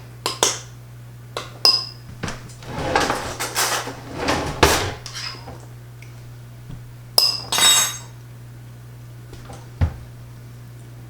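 A utensil scraping and clinking against a small baking dish as mashed potatoes are stirred in it. A few sharp, ringing clinks come a little past the middle.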